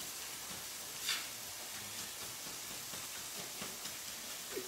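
Kitchen knife chopping salsa on a plastic chopping board, with one clear knock about a second in and a few light taps after, over a faint steady hiss.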